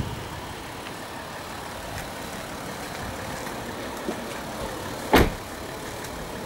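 Steady background hiss, then one sharp, loud thump about five seconds in: the BMW X5's door being shut.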